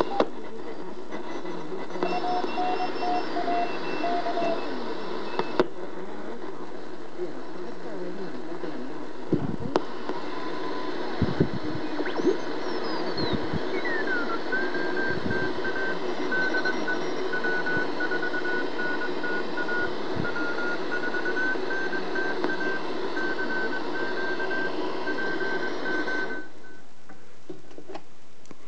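Realistic DX-66 shortwave receiver with an added BFO being tuned: steady static hiss with heterodyne whistles. One whistle sweeps down in pitch as the dial turns, then holds as a steady tone for about ten seconds, with a few soft knocks from handling the set. Near the end the hiss suddenly drops to a lower level.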